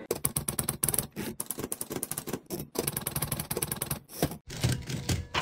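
Typewriter sound effect: rapid, irregular clacking of keys, with a louder strike near the end.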